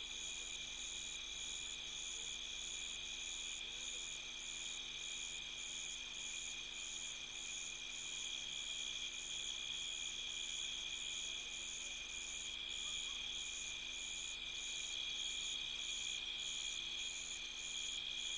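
Night chorus of crickets and other insects: a steady high trill, with a higher chirp pulsing evenly about twice a second.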